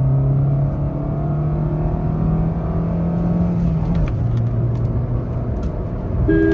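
Maruti Suzuki Swift's engine, running on CNG, pulling hard through the gears in a flat-out acceleration run. The engine note climbs slowly, then drops suddenly about four seconds in at an upshift of the manual gearbox and pulls on at lower revs. An electronic beep starts right at the end.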